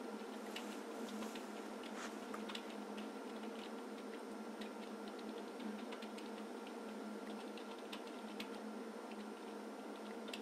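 Quiet room tone: a faint steady hum with scattered light clicks, typical of oscilloscope front-panel buttons being pressed.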